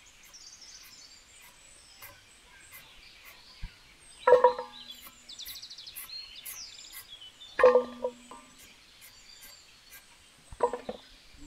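Small birds chirping steadily in the background, broken by three short, loud pitched sounds about three seconds apart.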